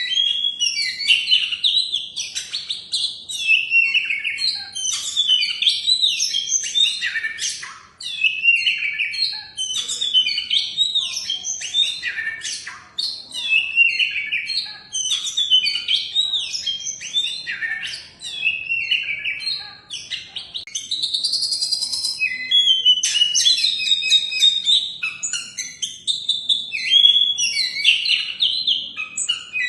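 Oriental magpie-robin (kacer) singing a long, varied song of quick high whistles, sweeps and chattering notes, broken by short pauses every few seconds.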